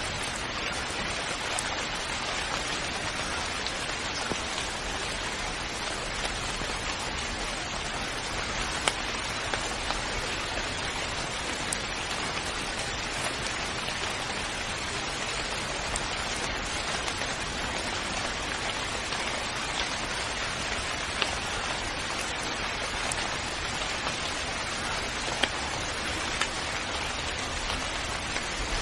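Steady rain falling, with a constant hiss and the tick of individual drops landing now and then.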